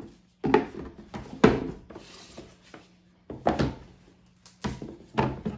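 Book-shaped cardboard keepsake boxes knocking and scraping as they are set down into a large cardboard box, about five hollow knocks spread over a few seconds.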